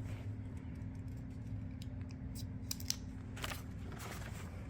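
Paper booklet being handled and its pages turned: scattered light clicks and rustles, with one longer rustle about three and a half seconds in.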